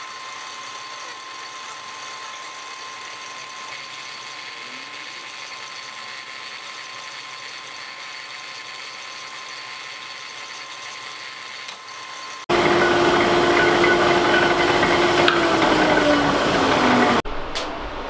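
Motor-driven slip rolls running while a steel strip is bent into a ring, a steady mechanical hum. About twelve seconds in the sound turns suddenly much louder, and its pitch falls as the motor winds down before it stops near the end.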